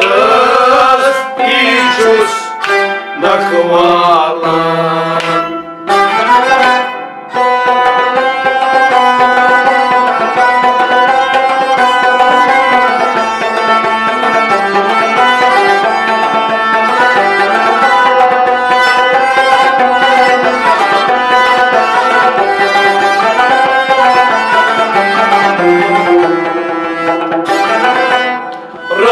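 Instrumental passage of Kashmiri Sufi music: a bowed sarangi and a plucked rabab play the melody together over a steady drum beat. A man's sung phrase trails off in the first few seconds.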